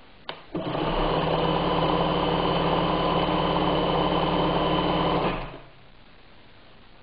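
Bernina 817 sewing machine sewing a row of stitches: a click, then the motor and needle mechanism run at a steady speed for about five seconds with a steady hum and whine before stopping.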